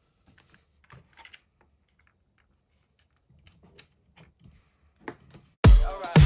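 Faint, scattered clicks and taps of small plastic kit parts and tools being handled while a gearbox is fitted to a plastic chassis. Near the end, loud dance music with a heavy beat cuts in.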